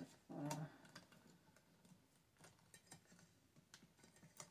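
Faint, scattered metallic ticks and clicks as the lid clamp and knob of a stainless steel electric grain mill are turned by hand, with a brief low sound about half a second in.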